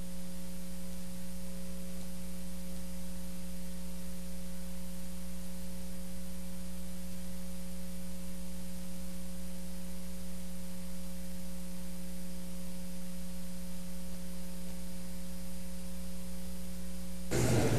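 Steady electrical hum in the broadcast audio feed, a few fixed tones over faint hiss, with no speech. Near the end it gives way to louder, noisier room sound.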